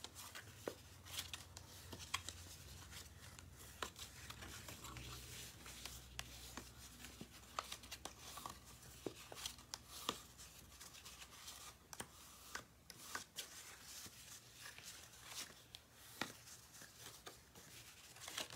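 Cardstock being folded along score lines and creased with a bone folder: faint, irregular scraping rubs and small taps of paper handling.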